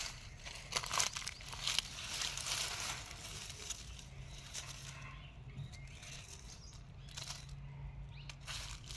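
Three-pronged hand cultivator scraping through loose soil, with dry leaves crunching and rustling as potatoes are dug out by hand: a run of short scrapes and crunches, busiest in the first two seconds, then sparser.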